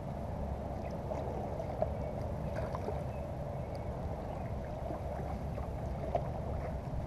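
Paddle strokes and water lapping against a sit-on-top fishing kayak as it is paddled, over a steady low rumble.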